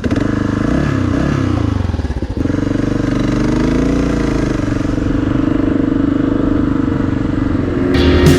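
Kawasaki KLR650's single-cylinder engine running, its revs rising and falling, with a brief drop in power about two seconds in.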